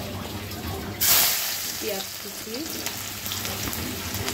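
Sliced onions hit hot oil in a karahi with a sudden loud sizzle about a second in, then fry steadily as the start of browning them.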